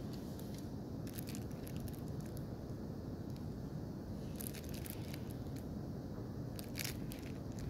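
Thin plastic packaging sleeve crinkling in the hands as a sealed paper card is handled and turned over: a few brief rustles, the strongest near the end, over a steady low background rumble.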